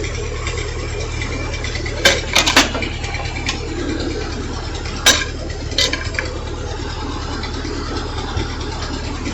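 Tractor engine idling steadily, with a few sharp metallic clanks: three close together about two seconds in, then single ones around five and six seconds in.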